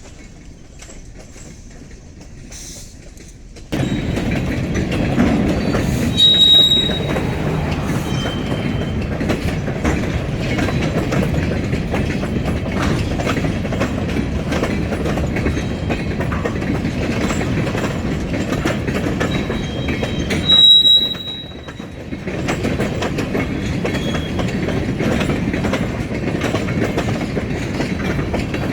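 Freight train cars rolling past, wheels clicking over rail joints, with two short, high-pitched wheel squeals. The rumble starts suddenly about four seconds in after a quieter stretch.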